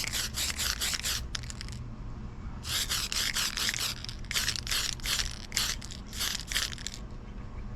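Aerosol spray-paint can being shaken, its mixing ball rattling in quick rhythmic strokes, in several runs of a second or more with short pauses between.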